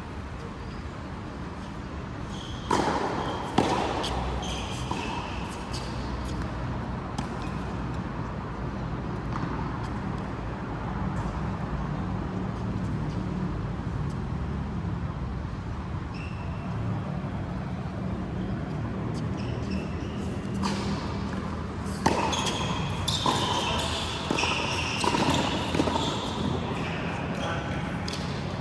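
Racket-sport rally: a couple of sharp racket hits about three seconds in, then a quick run of hits and short high squeaks from about twenty-two seconds, over steady background noise.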